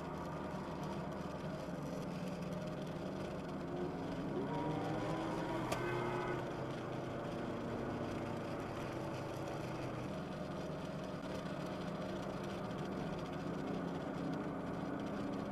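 Car engine and road noise heard from inside the cabin, steady, with the engine pitch rising as the car accelerates about four to six seconds in. A short sharp click comes near the six-second mark.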